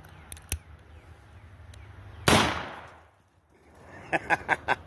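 A single gunshot from a .44 Magnum about two and a half seconds in, its tail dying away over most of a second as the round blows apart a sack of rotted potatoes. A rapid run of short, evenly spaced sounds begins near the end.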